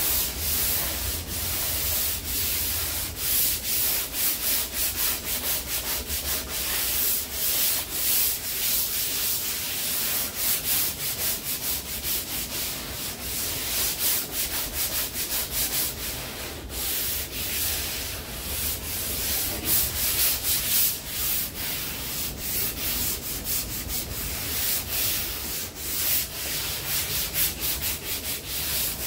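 Hand sanding of cured body filler on a car's quarter panel with sandpaper on a long sanding block: steady back-and-forth strokes, about two a second, each a dry rasping scrape.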